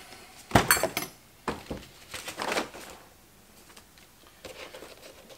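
Sharp metallic clicks and clatter from tools, screws and sheet-metal parts being handled while the screws holding an instrument's shield cover are taken out. The loudest click comes about half a second in, followed by a few more knocks and a brief scrape, then small faint clicks.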